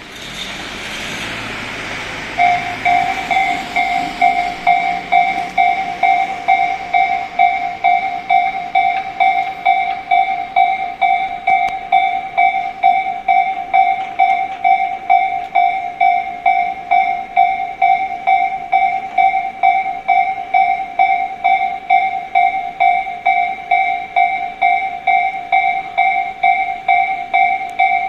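Japanese railway level-crossing warning bell ringing: a steady, repeating two-tone-like chime at about two strikes a second, starting a little over two seconds in. Before it, a rush of noise builds.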